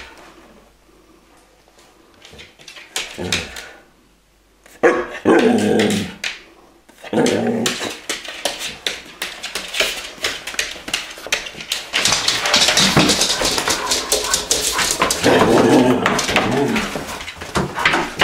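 Dogs barking indoors, sparse at first, then almost without pause from about seven seconds in.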